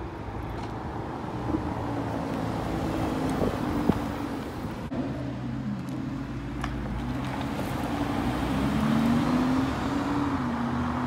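Lamborghini Huracán's V10 engine running at low revs as the car pulls away slowly, its note wavering up and down and growing a little louder near the end.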